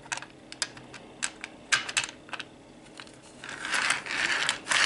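Light plastic clicks and taps of HO scale model train cars being handled and set on the track, with a short scraping noise starting about three and a half seconds in.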